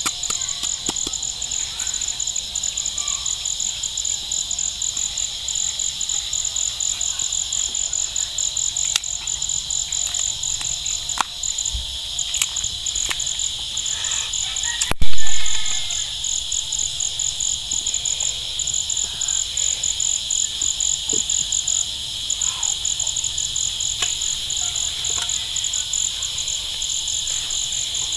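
A steady chorus of field insects: a rapid pulsing trill over a steady high hum. Scattered small clicks and taps come from a knife cutting and scooping a squash, and one loud thump sounds about halfway through.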